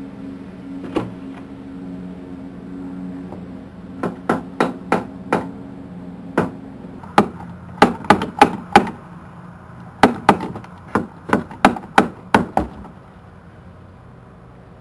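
A run of about twenty sharp knocks or blows, irregular and in quick clusters, loudest in the middle, stopping a little before the end. A steady low hum runs under the first half.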